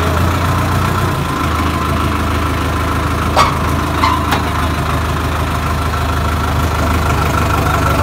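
Sonalika tractor's diesel engine running steadily, with a steady high whistle over the engine note from its turbo. Three short sharp clicks come about three and a half to four and a half seconds in.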